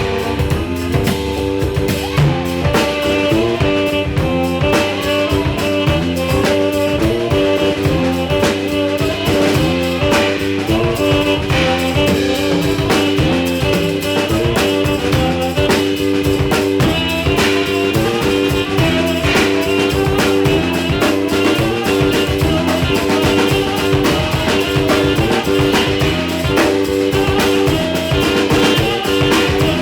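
A live instrumental trio playing: a drum kit keeping a steady beat under guitar.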